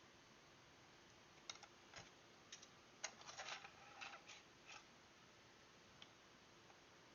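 Faint, sharp clicks of flush cutters snipping the excess leads off two resistors soldered into a circuit board: a scattered run of snips from about a second and a half in, thickest around the middle and ending near five seconds.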